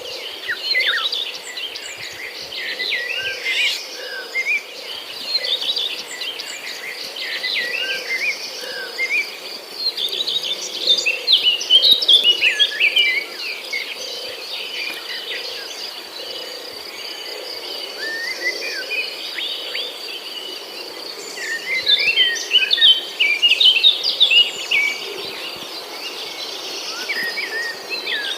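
Many birds chirping and calling at once, with quick overlapping chirps and short gliding whistles coming in busy clusters, over a steady high insect drone.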